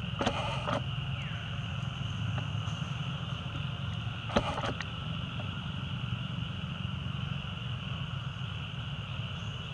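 Forest ambience: a steady high-pitched insect drone over a steady low rumble, broken by a short crackle near the start and a sharper click about four and a half seconds in.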